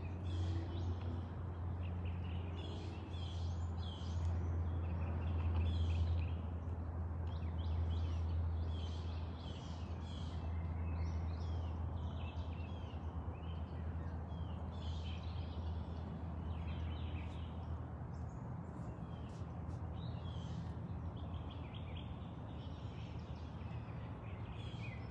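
Birds chirping and calling over and over, many short calls overlapping, over a steady low hum that is strongest in the first half.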